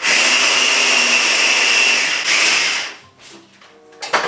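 Electric hand blender in its chopper bowl, mixing buttercream: the motor runs steadily, dips briefly about two seconds in, and stops about three seconds in. A click follows near the end.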